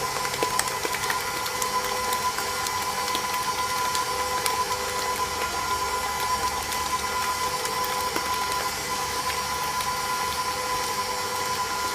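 Electric mixer running steadily at medium speed, beating cheesecake batter, with a steady whine and a few light clicks.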